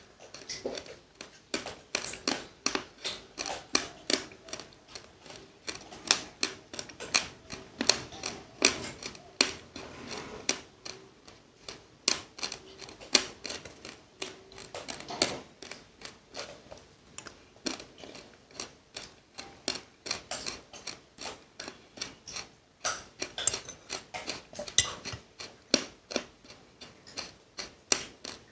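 Crunchy seeds being chewed: a run of sharp, irregular crunches, about two or three a second.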